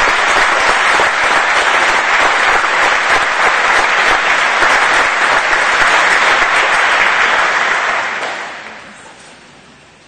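Audience applause filling a large hall, steady and loud, then dying away about eight seconds in.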